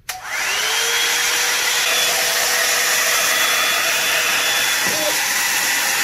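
Revlon One-Step hair dryer brush switched on at its high setting: a click, then its motor spins up with a rising whine that levels off within the first half second, and it runs as a steady rush of blowing air.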